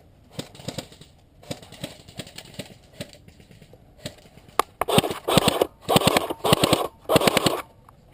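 Airsoft gun firing five short rapid bursts in quick succession, each a quick run of clicking shots, after a few seconds of light rustling and clicks.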